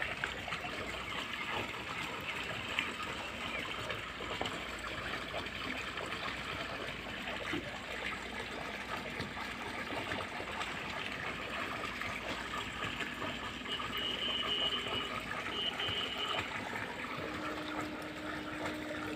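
Steady trickling and splashing of water in a concrete recirculating fish tank, with many small pops and clicks at the surface.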